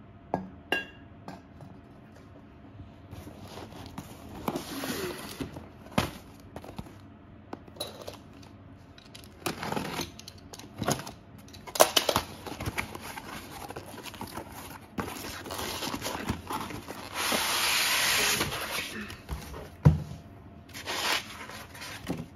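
Unboxing handling noises: a cardboard box knocked and slid on a wooden floor, cut open with a utility knife, with packing tape tearing and plastic wrap crinkling. A longer rasping tear or slide lasts about two seconds near the end, among scattered knocks and clicks.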